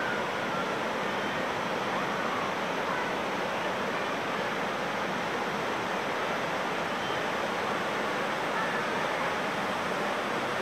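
Waterfall cascading down a rock face into a pool: a steady rush of falling water.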